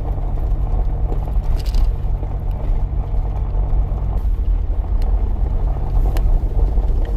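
Road and engine noise inside a moving passenger car: a steady low drone with an engine hum that drops away about four seconds in and returns a second later, and a few light knocks.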